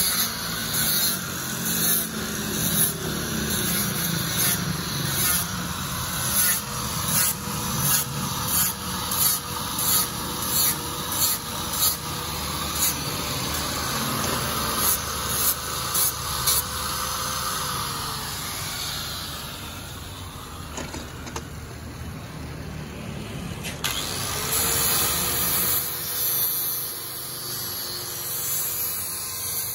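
Electric angle grinder with a sanding disc running steadily as it sands a fiberglass-coated speaker box panel, its sound pulsing about twice a second with the sanding strokes. About halfway through it winds down, and after a lull of several seconds it spins up again and runs on.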